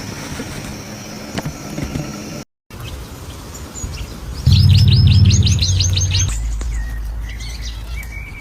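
A bird calling a quick run of about eight high, rising chirps, about two seconds long, over a low steady hum.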